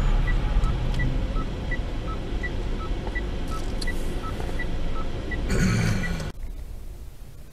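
Steady road and engine noise inside a moving car, with electronic beeping that alternates between a higher and a lower tone, about three beeps a second. Near the end there is a brief louder noise, then the sound cuts off suddenly.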